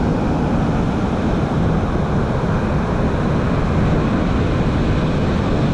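Strong storm wind buffeting the microphone in a steady low rumble, over the noise of rough sea surf.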